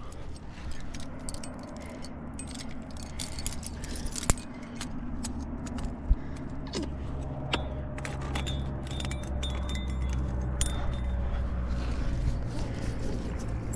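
A trad climbing rack of cams and carabiners clinking and jingling as the climber jams up a granite crack and places a cam, with scattered metallic clicks and scuffs, over a low steady rumble.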